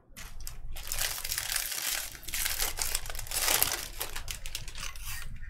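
Silver foil wrapper of a Bowman Draft jumbo card pack crinkling as it is torn open by hand.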